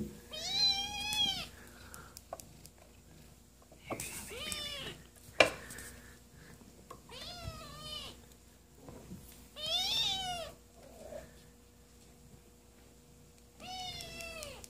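A 4.5-week-old Balinese kitten meowing repeatedly, about five high-pitched, arching mews spaced a few seconds apart. A single sharp tap sounds about five seconds in.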